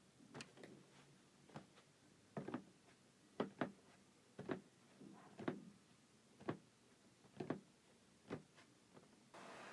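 Quiet, irregular light taps and clicks, roughly one a second with some in quick pairs, from hands handling a cardboard sneaker box. A rustle starts near the end.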